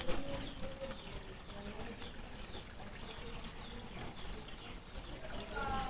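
Water from a garden koi pond's waterfall pouring and trickling steadily into the pond.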